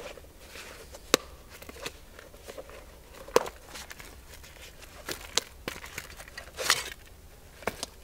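Hands rummaging in a canvas rucksack: rustling of heavy fabric with a few sharp clicks and knocks of buckles and gear, and a longer rustle near the end as a leather pouch is pulled out.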